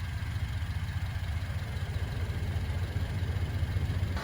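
Honda Civic's four-cylinder engine idling steadily, a low, even rumble.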